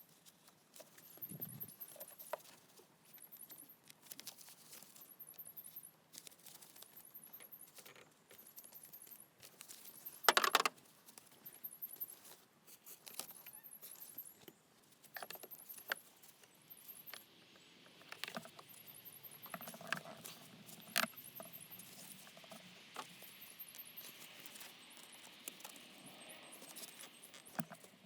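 Scattered small metallic clicks and rattles of hand tools and hose fittings being handled during fuel-hose work, with one sharp knock about ten seconds in and some light rubbing or scraping in the second half.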